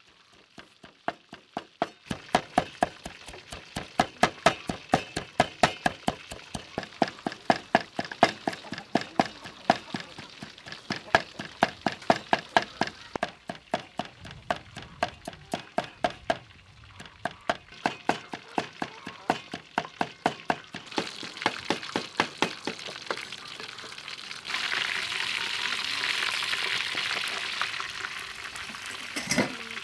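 Rapid, regular knocks of a cleaver chopping on a wooden chopping board, a few strokes a second. From about 24 seconds in they give way to a loud, steady sizzle of a whole fish deep-frying in hot oil.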